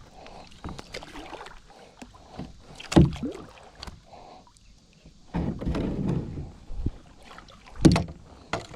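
Paddling a plastic sit-on-top kayak: paddle strokes swishing through the water, with two sharp knocks, one about three seconds in and one near the end.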